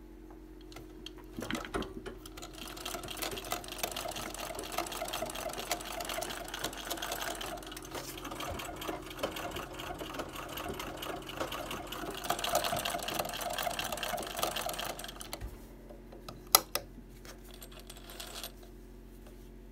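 93-year-old White Family Rotary treadle sewing machine stitching at a steady pace, a fast even clatter of needle and rotary hook, running smoothly after being cleaned and restored. It stops about fifteen seconds in, followed by two sharp clicks.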